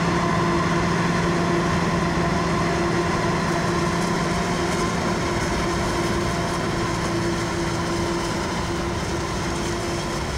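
Heavy farm machinery running steadily: a constant engine hum with a steady whine, getting slightly quieter toward the end.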